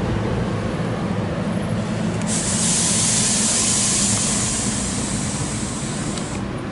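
Train's diesel engine running steadily, with a loud hiss of compressed air venting that starts suddenly about two seconds in and cuts off about four seconds later.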